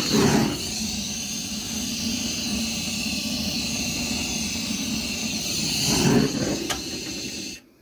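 Steady rushing roar as the wood stove under the smoker is lit, swelling briefly at the start and about six seconds in, then cutting off abruptly near the end.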